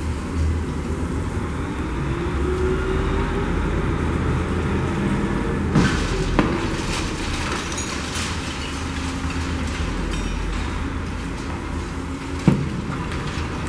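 Diesel engine of a wrecking-ball lattice-boom crane running with a steady low rumble, one tone in it rising in pitch over the first few seconds. Two sharp knocks come about six seconds in, and another near the end.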